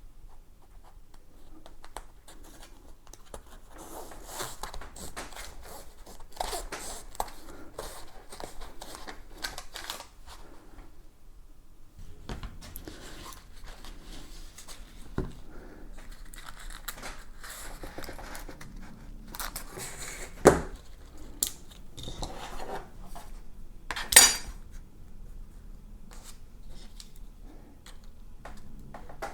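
Hands cutting and handling industrial-strength Velcro strips: scissors snipping and backing paper crinkling, with scattered clicks. Two louder sharp sounds stand out, a snap about 20 seconds in and a short rasp about 24 seconds in.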